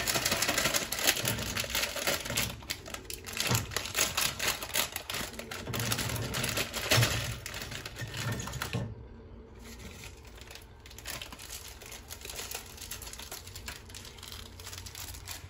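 Plastic Samyang ramen wrapper crinkling and rustling as it is torn open and the seasoning sachets and noodle block are taken out. The crackling is dense for about the first eight seconds, then drops to faint, scattered rustling.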